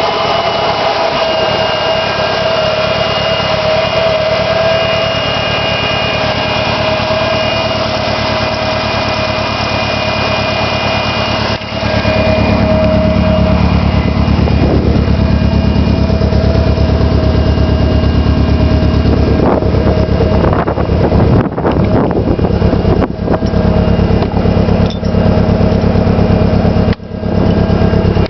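Nissan SR20DET turbocharged 2.0-litre four-cylinder running with a misfire. About twelve seconds in the sound gets louder and heavier in the low end, with a steady pulsing beat, and dips briefly a few times near the end.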